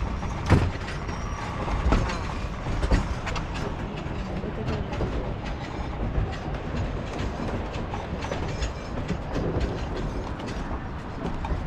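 Durango & Silverton narrow-gauge train cars rolling along the track: a steady low rumble with irregular clacks and knocks from the wheels over the rails, the sharpest in the first few seconds.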